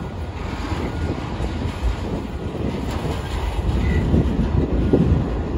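Freight train's autorack cars rolling past: a steady rumble of steel wheels on rail with scattered clicks, growing a little louder near the end as the mid-train locomotive approaches.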